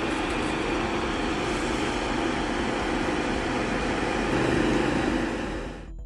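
Steady, dense outdoor noise with a motor-like hum, which cuts off suddenly near the end.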